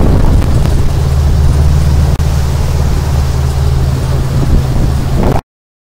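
A tour boat's engine running steadily with a low drone, under a haze of wind and water noise. It cuts off abruptly near the end.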